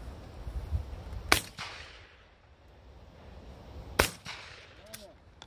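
Two shotgun shots about two and a half seconds apart, fired at clay targets.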